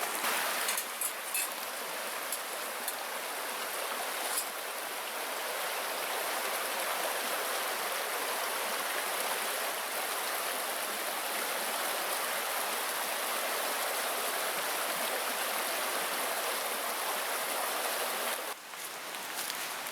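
A small creek running with a steady, even rush. A few light clicks come in the first few seconds, and the sound dips abruptly near the end.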